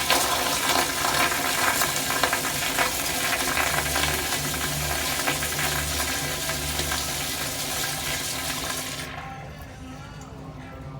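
2000s Mansfield Baltic toilet flushing: water rushing through the bowl, then the rush drops off sharply about nine seconds in, leaving a quieter sound of water.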